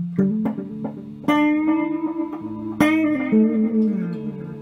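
Electric guitar played through an Elk EM-4 tape echo and a Guyatone amplifier, with the echo switched back on: a handful of picked notes, the strongest about one and three seconds in, each left to ring on.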